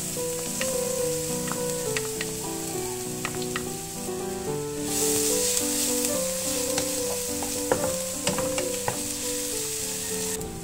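Minced garlic sizzling in hot oil in a non-stick wok, stirred with a wooden spatula that clicks against the pan now and then. The sizzle grows louder about halfway through and stops near the end.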